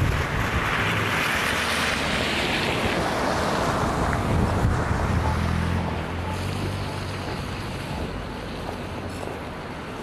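A motor vehicle passing on a snow-covered street: a low engine hum and tyre hiss that fade after about six seconds, with wind buffeting the microphone.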